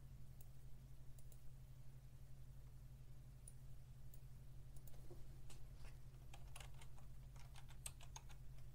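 Faint computer keyboard typing: a few scattered clicks, then a quick run of keystrokes about five seconds in, over a steady low hum.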